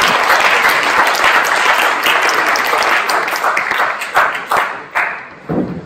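Audience applauding. The dense clapping thins out to a few scattered separate claps and dies away near the end.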